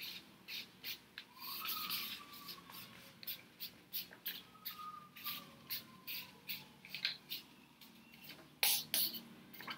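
A sheet of paper rustling and crinkling in the hands as it is folded and pressed along a crease, in many quick short crackles. There are a couple of faint drawn-out squeaks.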